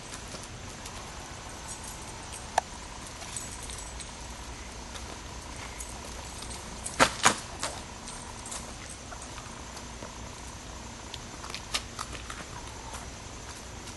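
Scattered sharp clicks and knocks over steady background noise, the loudest a pair about seven seconds in.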